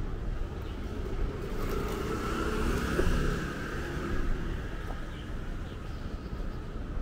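Street traffic: a road vehicle passing by, its sound swelling to a peak about three seconds in and then fading, over a steady low rumble.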